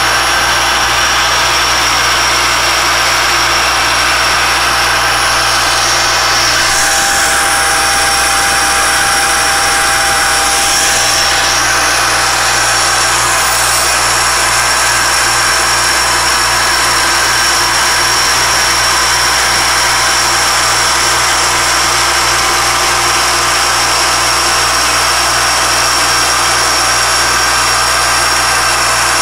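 Alexander Model 3A pantograph engraving and milling machine running, its spindle driving an engraving cutter through a metal watch-dial chapter ring to cut the outer edge: a loud, steady machine whine with a high tone.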